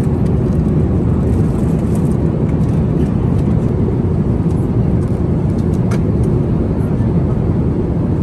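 Steady jet airliner cabin noise at cruise: an even, deep rumble of engines and rushing air through the fuselage, with a couple of faint clicks.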